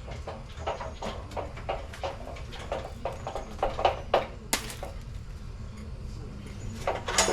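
Irregular clicks and metal knocks from work on a truck's front bumper brackets, with a sharp metallic clank that rings out at the very end.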